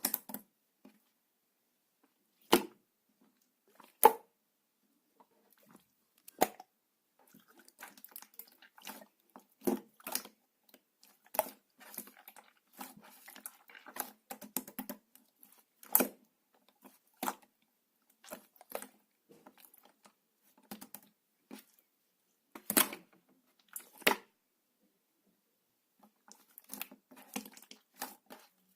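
Clear slime being pressed, poked and stretched by hand, making sharp irregular pops and clicks with clusters of small sticky crackles between them.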